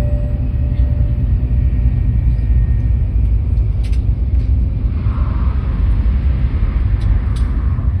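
Steady low rumble of an N700S Shinkansen running, heard inside the passenger car. The last note of the on-board arrival chime dies away about a second in.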